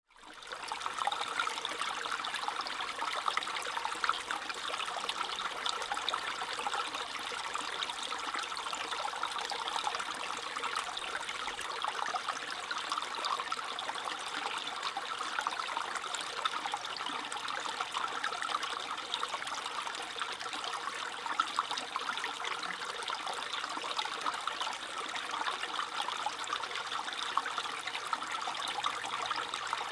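A small stream babbling and trickling over stones, a steady splashing water sound that fades in during the first second.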